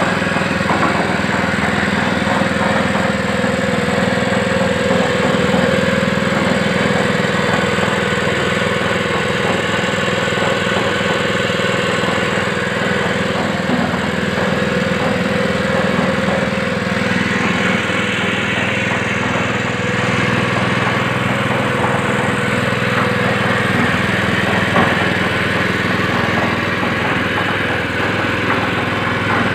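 Honda GX160 single-cylinder four-stroke petrol engine on a belt-driven concrete mixer, running steadily at an even speed.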